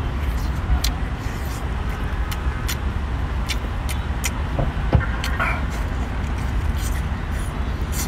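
Eating sounds: chewing and small shell cracks and crunches as cooked small crab and octopus are pulled apart by hand and eaten, with one sharper crack about five seconds in. A steady low rumble runs underneath.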